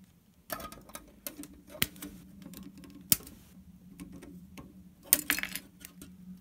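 Plastic model-kit sprue being handled and knocked against the work surface: scattered sharp clicks and light plastic rattles, with a short burst of clatter about five seconds in. A faint steady low hum runs underneath.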